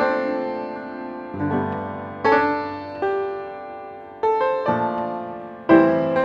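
Background music of slow piano chords, a new chord struck roughly every second and fading away.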